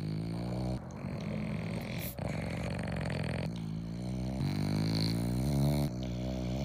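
A bulldog lying on its back giving a string of long, low, pitched grumbling vocal sounds, each about a second long with short breaks between them.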